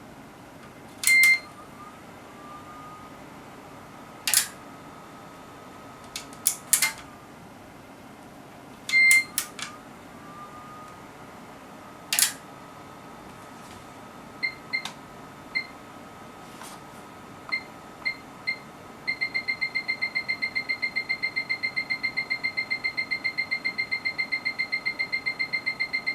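HP 3245A Universal Source: sharp clicks from its front panel and relays, a couple with a short high beep, then from about two-thirds in its beeper sounds a fast, even train of short beeps.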